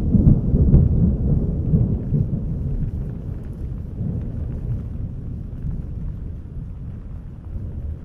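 Rolling thunder with its bass boosted: a deep rumble, loud at first with a few crackles, that slowly dies away over several seconds.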